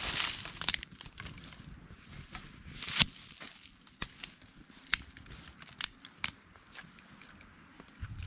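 Small fire of dry sticks and leaves crackling, with sharp separate pops every second or so. Right at the start, dry twigs rustle as they are laid on the fire.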